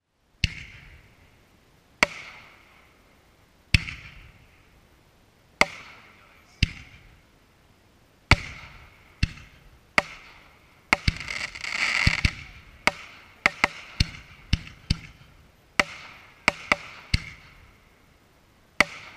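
Aerial firework shells bursting overhead, about twenty sharp bangs, each trailing off in a fading echo. They come about one every two seconds at first and quicken toward the middle, where a dense run of crackling bursts piles up.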